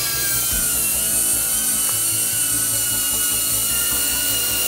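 DJI Avata cinewhoop FPV drone in flight, its ducted propellers giving a steady high-pitched whine whose pitch creeps slightly upward.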